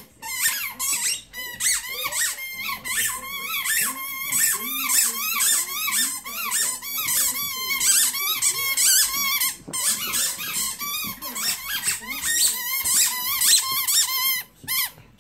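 Dog chewing a yellow squeaky ball toy, setting off rapid, loud squeaks, two or three a second, with a short break about ten seconds in.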